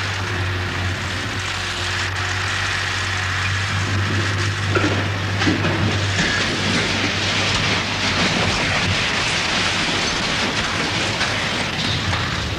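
Steady rumbling and rattling of a building demolition, with structures collapsing and debris tumbling, and a few sharper cracks about five seconds in.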